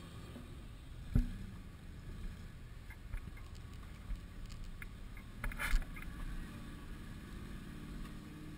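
Toyota 4Runner's engine running steadily at low revs as the truck crawls over rocks. A sharp knock comes about a second in, and a quick cluster of knocks a little past halfway, as rock strikes the truck.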